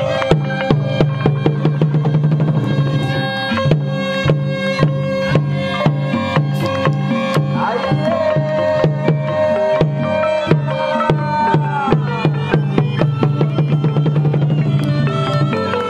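Cambodian pinpeat ensemble playing fast, dense struck melody over a regular low drum beat. About halfway through, a reed oboe (sralai) rises into one long held note that lasts about four seconds.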